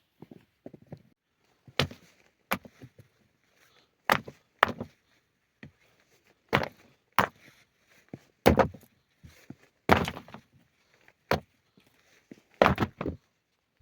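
A series of irregular hard knocks and thuds, about a dozen, spaced unevenly with short pauses between them, the heaviest around the middle and near the end: hands-on work with hard objects such as stones or wood.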